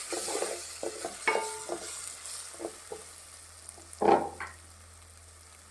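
A spatula stirring and scraping through sautéed onion and tomato in a hot oiled pan, the food sizzling, with irregular knocks against the pan and a louder one about four seconds in. The sound gets quieter near the end.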